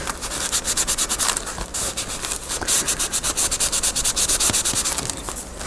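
Rapid back-and-forth rubbing strokes on paper, several a second, tapering off near the end.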